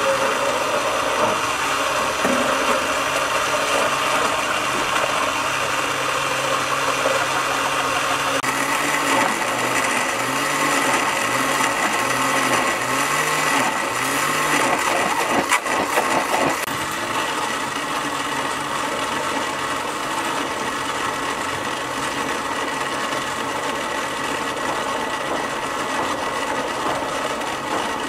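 Electric countertop blender running steadily, pureeing green leaves with water into a thick paste. Its tone shifts a little about a third of the way through.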